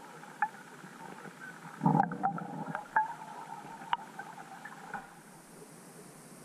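Muffled underwater sound picked up through a GoPro's waterproof housing: a low rumble about two seconds in, with a few sharp clicks scattered through.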